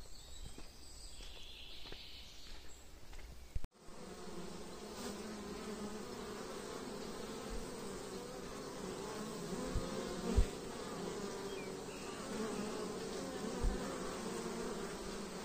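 Honey bees buzzing at a wooden hive's entrance, a steady hum from about four seconds in, broken by a few short knocks. Before that, faint footsteps on a forest dirt track.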